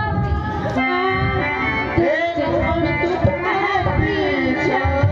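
Live Ramleela stage music: a harmonium playing a melody over hand-drum beats, with a voice singing through the stage microphone.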